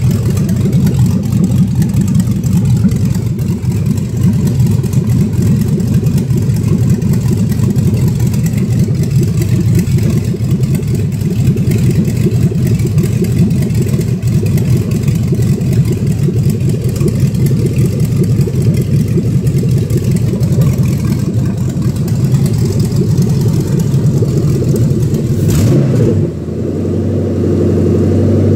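Chevrolet LQ4 6.0-litre V8 running on a stand, out of any vehicle, at a steady, rough-sounding speed. Near the end the throttle is opened by hand at the throttle body and the engine note climbs in pitch.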